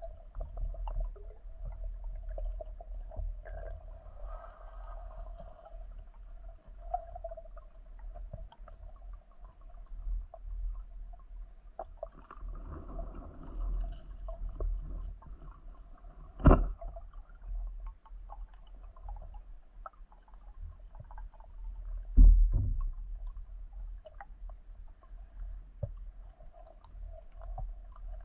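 Underwater sound picked up by a submerged camera while spearfishing: a low rumble of water movement with a faint steady hum and scattered small clicks. Two sharp knocks stand out, one about halfway through and a deeper one about six seconds later.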